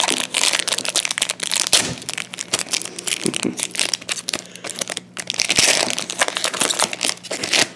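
Hockey card pack wrapper crinkling and crackling as it is torn open and the stack of cards pulled out, a dense run of quick crackles.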